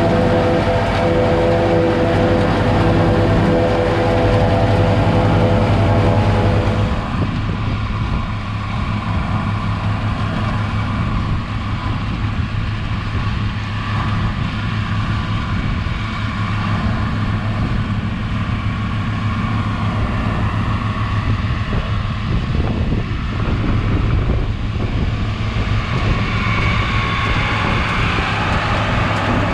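Tractor engine and harvesting machinery running steadily: first a hum with several steady tones, then, after an abrupt change about seven seconds in, a rougher, noisier running sound over a low engine hum.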